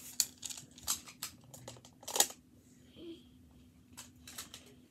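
Plastic magnetic building tiles clicking and clacking as they snap together and are set down, a scattered run of sharp clicks with the loudest a little past two seconds in.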